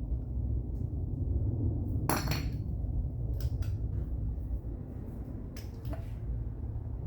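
Metal hand tools clinking against sheet metal: one louder ringing strike about two seconds in, then a few lighter clicks, over a steady low hum.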